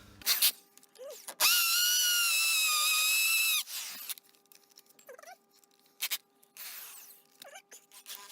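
Power drill-driver driving a screw: the motor whines steadily for about two seconds, its pitch sagging slightly under load, then stops. A few clicks and knocks of handling come before and after it.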